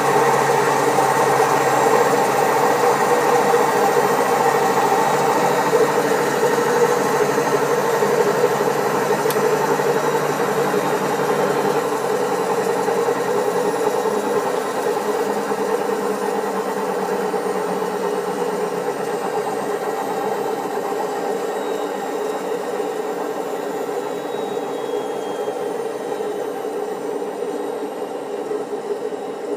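Servis Caress 1300 washing machine spinning, a loud steady mechanical drone and rattle from its drum bearings, which are very worn. It grows gradually quieter, and a deep part of the hum drops away about halfway through.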